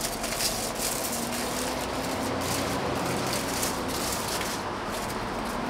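Cooking noise at a street-food toast stall: a steady hiss with irregular short scratchy strokes and a faint low hum.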